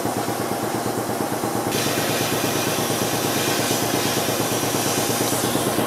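Metal lathe running with a steady mechanical hum. A hiss joins in the high range about two seconds in.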